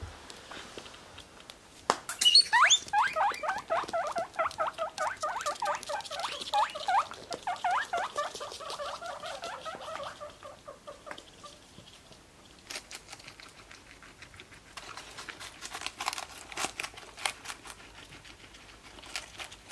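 Guinea pigs wheeking: a rapid string of squeaky calls, several a second, that starts about two seconds in and dies away near the middle. Later comes fine crisp clicking of guinea pigs chewing a chicory leaf.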